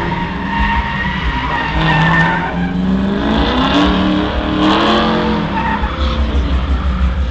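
A car drifting on asphalt. The engine revs up and down while the tires squeal and skid, loudest in the middle stretch.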